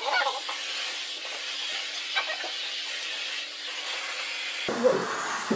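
Utility knife blade sawing into a Pringles can, a steady rasping hiss. Near the end the sound changes abruptly and a couple of thumps follow.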